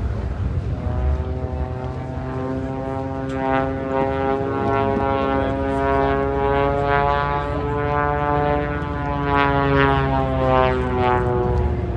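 Propeller airplane flying past, its engine and propeller making a steady droning note that grows louder about three seconds in and drops slightly in pitch near the end as it passes.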